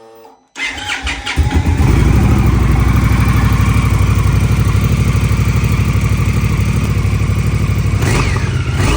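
Indian Scout's liquid-cooled V-twin on its stock exhaust being started: it cranks about half a second in, catches, and settles into a steady, evenly pulsing idle.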